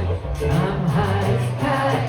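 A live rock band playing guitars, bass and drums, with singing.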